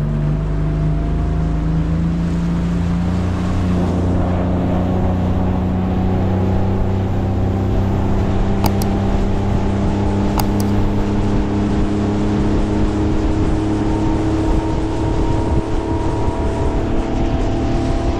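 Boat's outboard motor running steadily under way, its pitch creeping slowly upward. Two short clicks sound about halfway through.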